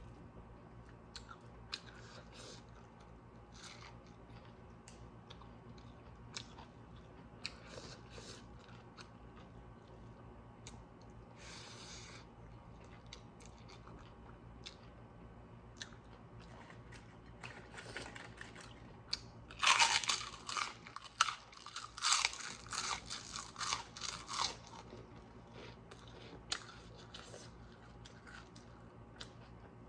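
A person chewing food close to the microphone: scattered soft wet chewing clicks, then a louder run of crunching about two-thirds of the way through.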